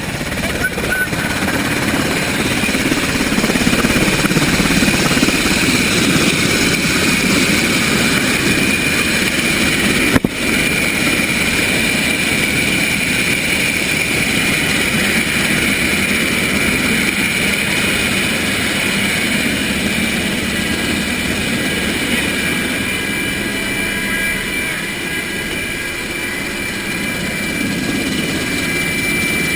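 Black Hawk helicopter running: a steady high turbine whine over continuous rotor noise, with a single short knock about ten seconds in.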